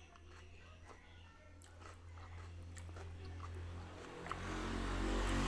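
A person chewing and biting food close to the microphone, with scattered short clicks and smacks over a steady low hum. Near the end a louder hiss with held tones comes in.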